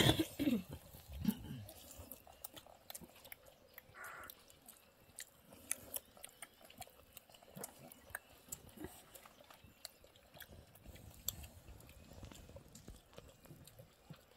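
Close-up chewing of rice and chicken eaten by hand: many small, scattered clicks and mouth sounds.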